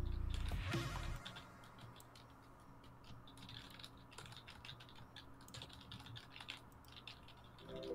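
Irregular clicking and tapping of a computer keyboard and mouse during 3D design work. Background music plays over the first second, then fades out, and comes back near the end.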